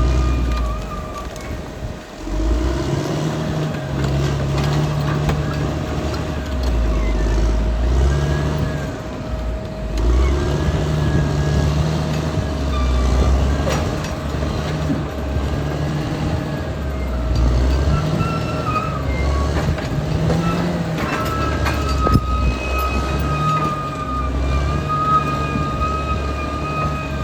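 Caterpillar D6R XL bulldozer's diesel engine working under load, its low rumble swelling and easing every few seconds, with a steady whine and a higher whine that comes and goes.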